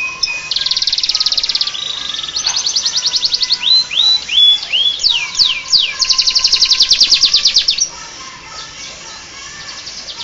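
Domestic canary singing: fast, even trills alternating with short falling whistle notes, a song type with learned bar-winged prinia (ciblek) phrases. The song stops about eight seconds in, leaving only faint chirping.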